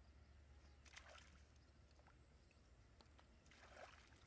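Near silence, with two faint splashes of hands groping in shallow muddy water, about a second in and again near the end.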